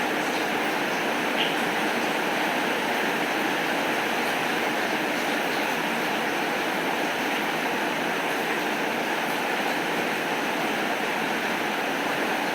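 Heavy rain falling steadily, an even hiss with a few faint ticks of drops.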